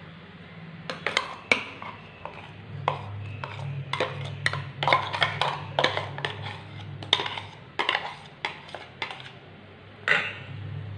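Metal spoon tapping and scraping against a mixer-grinder jar and a stainless steel bowl while thick banana paste is scooped out, in irregular clinks and knocks.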